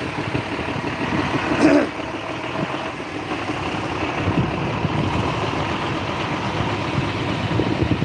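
Nissan Diesel concrete mixer truck's diesel engine idling steadily, with a brief louder sound about two seconds in.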